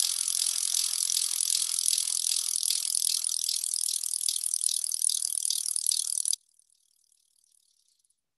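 Felt-tip marker scratching rapidly on paper as a spiral is drawn, a steady high-pitched scratching that cuts off suddenly about six seconds in.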